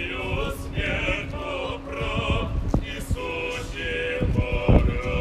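Men's voices singing in a slow chant, with heavy low thumps and rumble underneath, loudest about four and a half seconds in.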